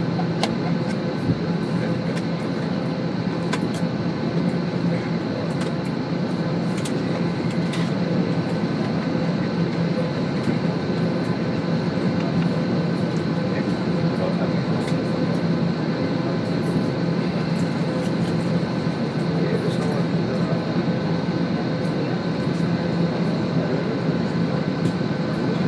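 Airliner cabin noise while taxiing to the runway: a steady engine and air-system hum with several held tones, and scattered small clicks and rattles from the cabin.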